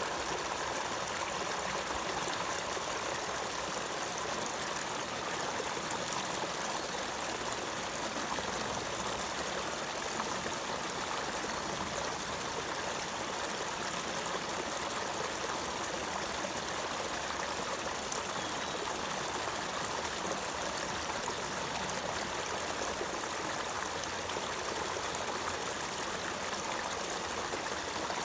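Running water, flowing in a steady, even stream with no breaks or changes.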